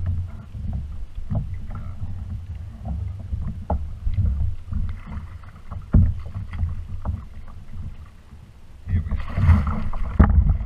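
Water sloshing against a kayak hull with scattered knocks. About nine seconds in, loud splashing as a hooked blue shark thrashes at the surface beside the kayak.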